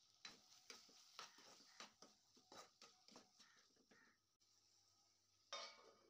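Steel spatula stirring and scraping a thick potato-and-masala mix in a non-stick kadhai: a run of scrapes and light knocks, about two or three a second, for about four seconds. Near the end a steel lid is set on the pan with a brief clatter.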